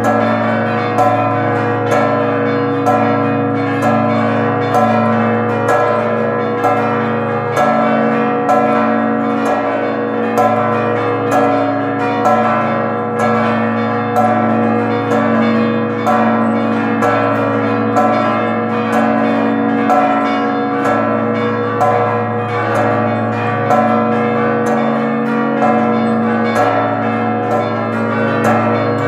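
Several church bells of St Mary of Carmel Church, Valletta, rung together in a fast, unbroken festive peal. The strikes follow close on one another at several different pitches, and each bell rings on over the next.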